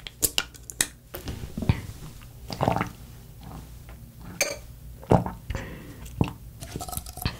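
A small plastic drink bottle's cap twisted open with a few quick clicks, followed by wet sips and gulps as it is drunk.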